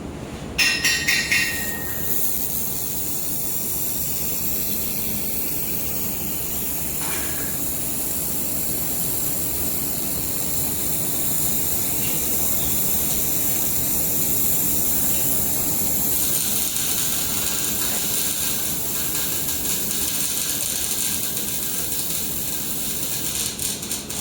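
Handheld air-cooled laser welder with wire feeder running through a long weld pass: a steady hiss with mechanical running noise. It starts with a few sharp bursts about half a second in and shifts slightly about two-thirds of the way through.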